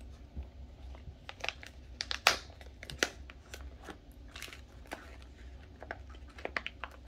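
Crinkling and rustling of packaging being unwrapped by hand to take out a diamond painting tool kit: irregular crackles and small ticks with no steady rhythm.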